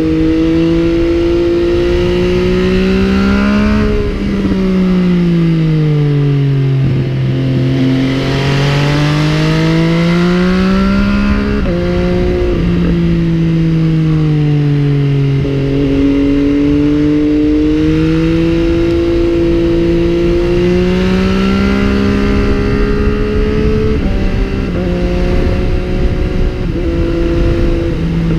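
MV Agusta Brutale 800's three-cylinder engine heard from the moving motorcycle. Its pitch climbs and falls repeatedly as the bike speeds up and slows, with abrupt drops in pitch about 4 and 12 seconds in.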